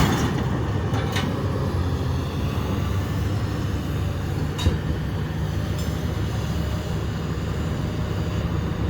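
Engine of a scrapyard grab machine running steadily as it lifts scrap appliances off a truck, with a few short metal knocks.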